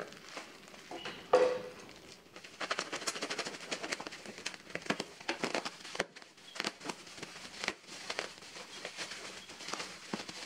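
Parcel wrapping being opened: scissors cutting through the taped plastic, with one loud crackle about a second and a half in, then black bubble wrap crinkling and crackling in many small rapid clicks as it is pulled off by hand.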